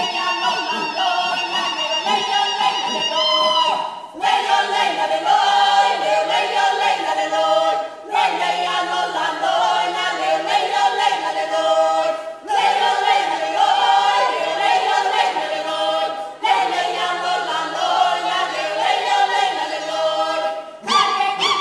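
A group of voices singing in harmony, a cappella choir style, in phrases of about four seconds with short breaks between them. A low bass line steps up and down beneath.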